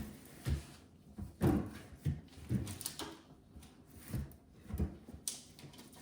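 Light knocks and bumps, about ten of them at irregular intervals, from refrigerator shelves and their contents being handled and set in place.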